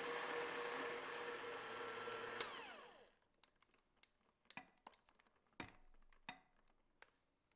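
Electric hand mixer whirring as its wire beaters whip a cream mixture in a glass bowl; it is switched off with a click about two and a half seconds in and winds down with a falling whine. A few light clicks and taps follow, the metal beaters knocking against the glass bowl.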